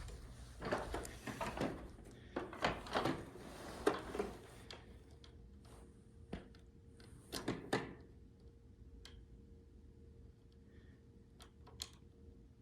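Clunks and knocks of something being handled, then a quieter stretch with a few sharp clicks and a faint steady hum.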